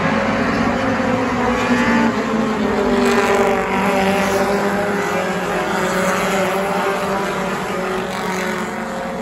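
A field of Stadium Stock race cars passing close by, several engines running at once with overlapping, shifting engine notes. It swells as the pack goes by a few seconds in and eases off near the end.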